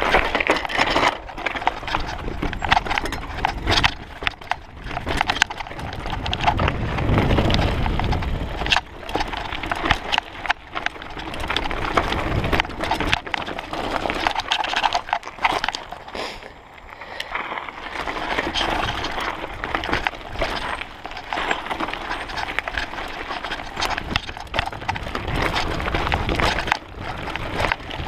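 Mountain bike descending a rocky, gravelly trail: tyres, frame and components rattle and clatter over stones in a dense, irregular stream of knocks, with a low rumble swelling near the middle and easing briefly a little past halfway.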